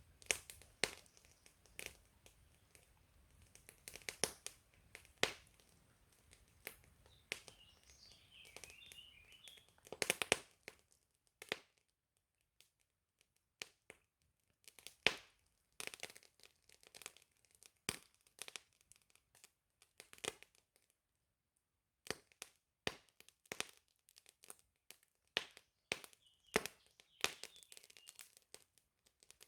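Wood fire crackling and popping, with sharp, irregular cracks, sometimes several close together. Short high bird chirps come in twice, about eight seconds in and again near the end.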